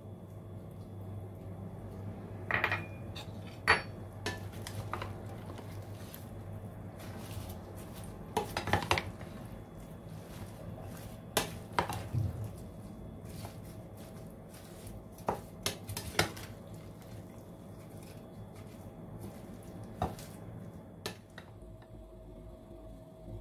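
A wooden spatula tossing salad in a glass bowl, with irregular clinks and knocks against the bowl and a small ceramic sauce dish, over a steady low hum.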